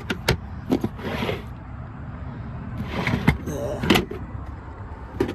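A handful of sharp clicks and knocks with a short rustle, the sound of plastic interior fittings and compartment lids in a camper van being opened and handled.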